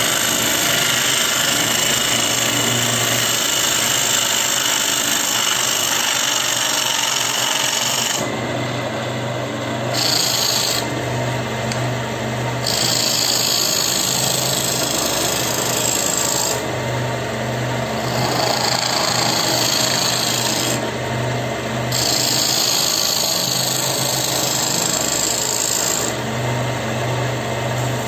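Wood lathe running while a gouge hollows the inside of a burl bowl: a steady motor hum under the rough hiss of the tool cutting wood. The cutting drops away briefly several times, leaving only the motor hum.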